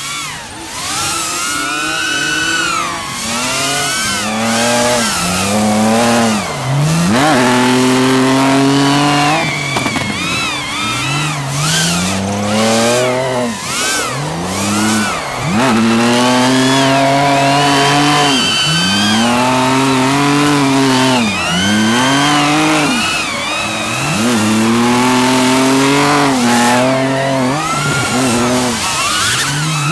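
Drift car engine revving hard: it holds high revs, drops off sharply and climbs back many times in a row, as the throttle is worked through drifts.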